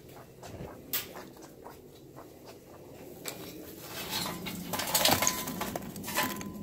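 Lump charcoal clicking and clattering, getting denser and louder over the last couple of seconds as lit coals from a chimney starter are tipped onto unlit charcoal.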